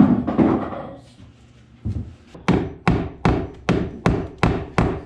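Hammer driving a cable staple over white electrical cable into a wooden wall stud: a quick, even run of about seven strikes, roughly two and a half a second, in the second half. A thud and rubbing from handling the cable and staple come at the start.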